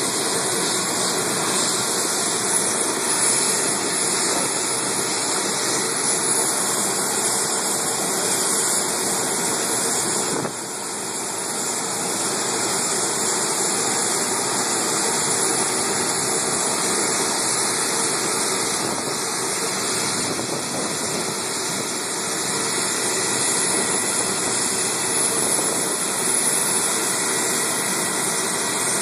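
Jet aircraft engines running on an airport ramp: a steady, loud rush with a thin high whine over it, dipping briefly about ten seconds in.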